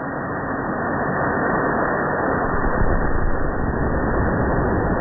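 Potassium nitrate and sucrose sugar rocket motor burning on its launch rod: a loud, steady rushing hiss of exhaust that builds over the first couple of seconds and then holds.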